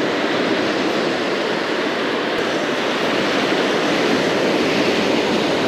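Surf washing onto a sandy beach: a steady, even rush of noise with no breaks.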